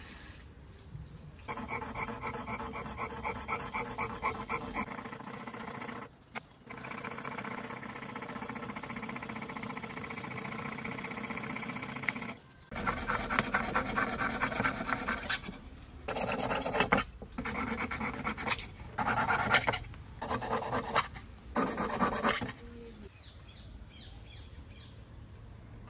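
Rasping strokes of a part being filed by hand, in several stretches that stop abruptly and start again.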